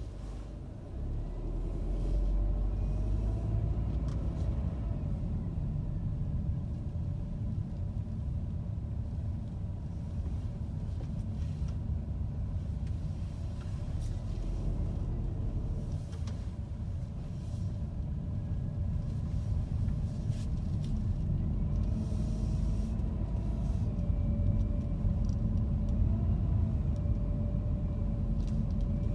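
Car driving slowly: a steady low engine and road rumble heard from inside the cabin, with a faint whine that rises and falls in pitch now and then.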